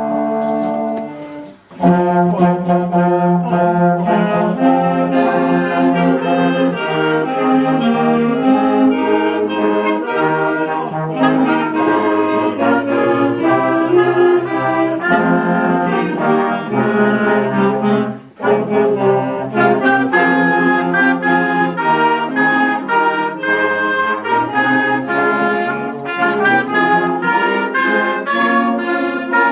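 Amateur wind band (harmonie) playing together: flutes, saxophone and brass. A held chord cuts off about a second and a half in, the band comes straight back in, and there is a short gap about two-thirds of the way through.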